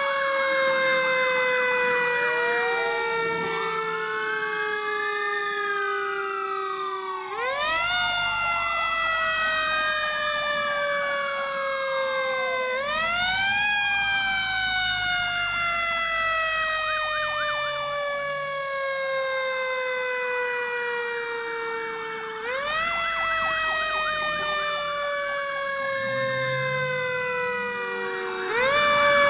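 Fire engine sirens, more than one at once. One siren's tone jumps up and then slides slowly down over several seconds, restarting four times. Under it, a second siren sweeps up and down.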